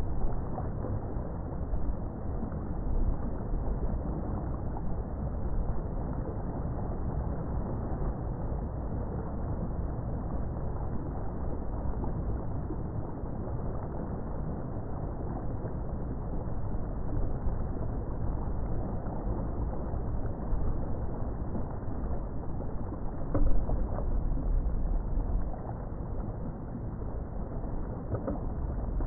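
Steady low rumble of a boat under way, with water rushing along the hull. A single louder knock comes about 23 seconds in.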